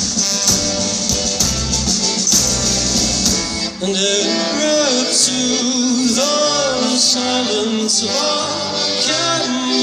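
Live band music: a full passage with drums and deep bass that drops away about four seconds in, leaving a melody line over lighter backing.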